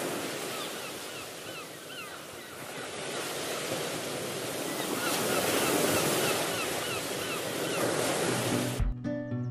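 Waves washing on a shore, swelling and easing, with runs of short, high chirps over them twice. Plucked guitar music starts near the end.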